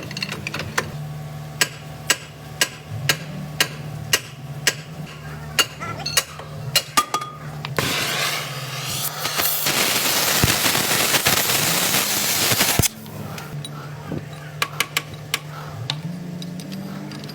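Sharp metal knocks and clicks from work on a wheel loader's wheel-end gearing. About eight seconds in, a loud hiss runs for roughly five seconds and cuts off suddenly, over a low steady hum.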